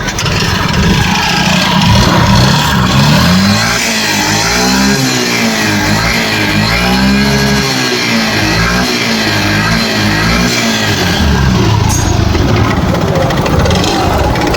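Yamaha Fascino 125 BS6 scooter's single-cylinder engine revved up and down several times, then running steadier near the end. It makes an unusual engine noise that the mechanic puts down to a seized engine, with the piston and cylinder bore scored.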